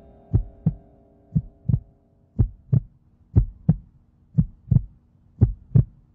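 Heartbeat sound effect: six slow double thumps, lub-dub, about once a second, over a faint steady hum.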